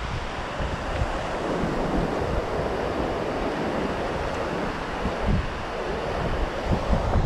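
Ocean surf washing onto the beach in a steady rush that swells and eases, with wind buffeting the microphone in low rumbling gusts.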